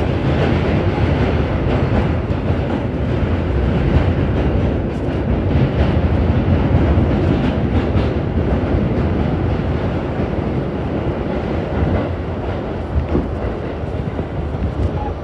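Subway train running at speed, heard from inside the car: a loud, steady rumble of wheels and motors on the rails.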